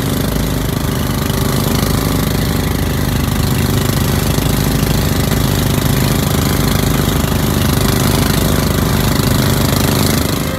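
A fishing boat's engine running steadily under way, with the rushing wash of the wake.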